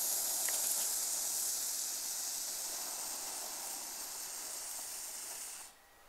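Small Class 1 bengal fountain hissing steadily as it sprays sparks, with no crackling. The hiss slowly weakens and stops about five and a half seconds in as the fountain burns out.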